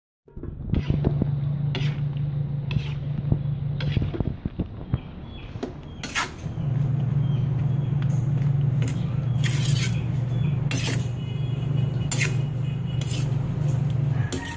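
A metal utensil scraping and clattering against a metal wok while stir-frying vegetables, about a dozen sharp knocks. Under it runs a steady low hum that drops out for a couple of seconds in the middle.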